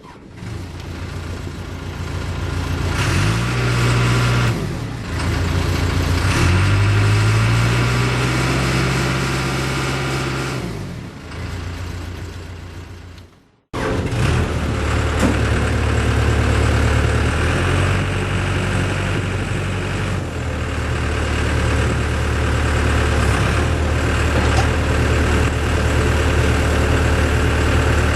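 Case 580M Series 2 backhoe loader's diesel engine running, its speed rising and falling twice in the first half. After a sudden cut about halfway through, it runs on steadily.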